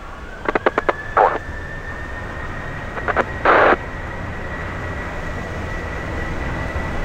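Boeing 737 jet engines spooling up for the takeoff roll. A whine rises in pitch early on, then holds steady and high, over a low rumble that slowly grows louder. Two short bursts of air-band radio crackle come through, about a second in and again about three and a half seconds in.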